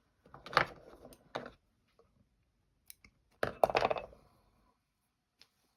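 Close clicking and rustling as sewing tools, thread and fabric are handled while a stitch is finished off, in two short bursts about three seconds apart.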